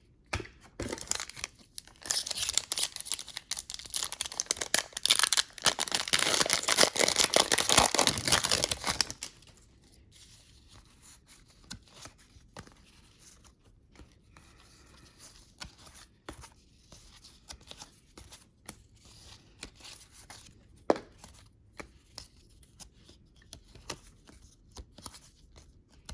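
A trading-card pack wrapper being torn open and crinkled for several seconds. Then faint clicks and light rustling of cards being handled.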